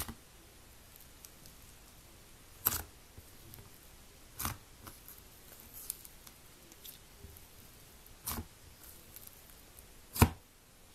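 Thick, airy slime being poked, folded and pressed by hand in a plastic container, letting out five sharp pops of trapped air a couple of seconds apart, the last and loudest near the end, with faint crackling between.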